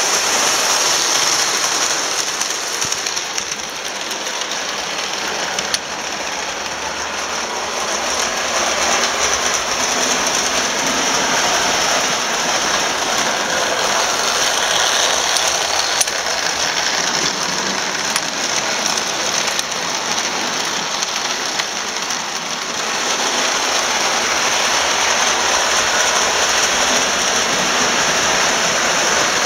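Vintage Marx electric toy trains running on metal track: a steady whir of the motors with a continuous rattling clatter of wheels over the rails.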